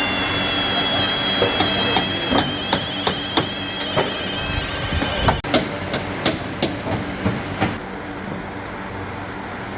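Hammer striking metal in a run of quick blows, about three a second, over a steady high whine that stops about halfway through.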